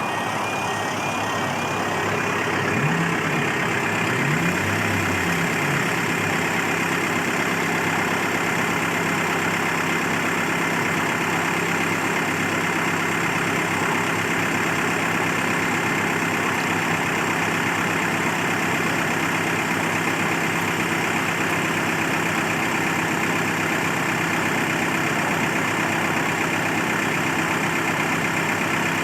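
Steady, continuous mechanical hum, like running machinery or an idling engine, with several held tones and no pulsing. A few low sliding pitches come in its first few seconds.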